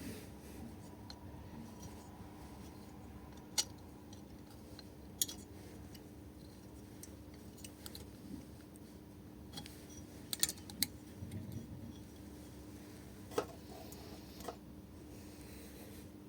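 A few short, sharp metallic clicks and taps of engine parts and hand tools being handled during small-engine assembly, with a small cluster about two thirds of the way through, over a steady faint hum.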